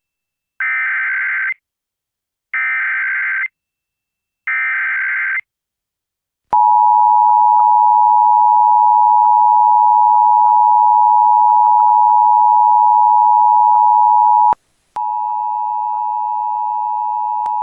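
Emergency Alert System alert tones: three one-second bursts of the SAME digital header, a harsh data screech, about two seconds apart, then the two-tone EAS attention signal sounds loud and steady for about eight seconds. A quieter steady tone follows for the last couple of seconds.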